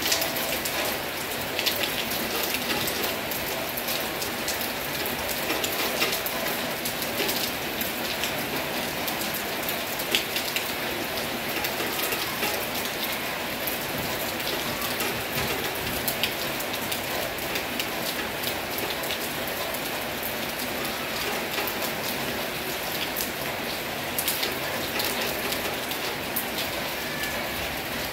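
Heavy rain falling steadily: a dense, even hiss with many individual drops ticking sharply on a hard surface.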